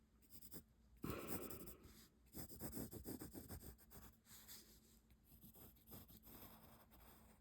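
Pencil scratching across paper in short, irregular strokes as lines are drawn. The strokes are faint, with a quick run of them a second or two in.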